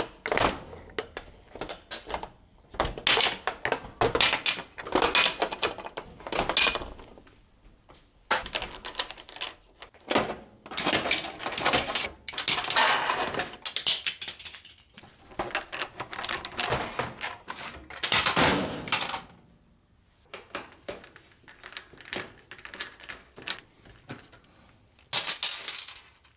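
Bursts of rapid clicking and clattering, a second or more at a time, from hand tools and loose metal and plastic parts as a Whirlpool glass-top electric range's control panel is taken apart: knobs pulled off, screws and sheet-metal covers removed.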